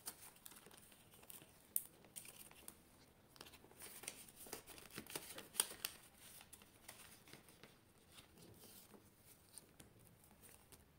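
Faint rustling of paper banknotes and crinkling of a clear plastic binder pocket as the notes are slid into it, with a few sharper crackles scattered through.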